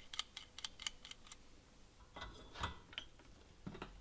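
Kincrome hand rivet nut gun being handled as a rivet nut is threaded onto its mandrel: a quick run of faint small metal ticks, about six a second, over the first second or so. A few soft knocks follow in the second half as the tool is set against a steel bracket.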